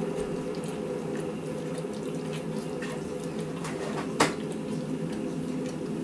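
Kitchen work sounds over a steady hum: light scattered clicks and clatter, and one sharp clink or knock about four seconds in.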